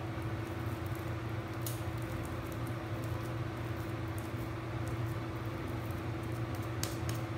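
Steady low hum with a faint steady tone above it, and two faint clicks, one about a second and a half in and one near the end.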